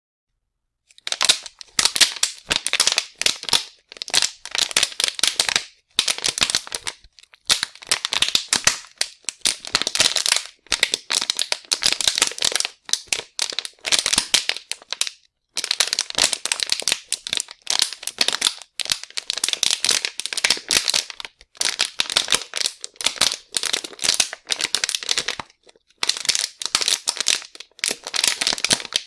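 Plastic being crumpled by hand: dense, sharp crackling in repeated runs of a second or two with brief pauses between them.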